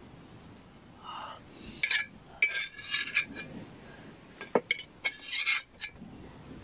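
A metal spoon scraping and clinking against the inside of a metal cooking pot as stewed chicken and soup are scooped out into another pot: irregular scrapes and clinks, with one sharp clink about four and a half seconds in.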